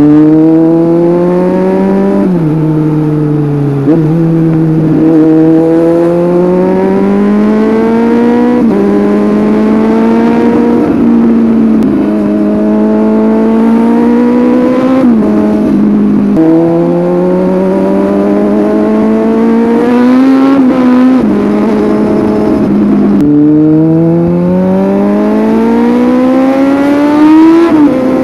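Kawasaki Z800's inline-four engine through an aftermarket Scorpion exhaust, revving up under acceleration again and again while riding, each climb in pitch ending in a sudden drop at a gear change or when the throttle is closed.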